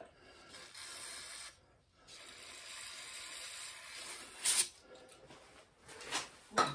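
Aerosol spray cans of carb cleaner and PB Blaster penetrating oil hissing through a straw in two bursts, a short one and then one about two seconds long. A sharp click comes about four and a half seconds in, and a couple of light knocks follow near the end.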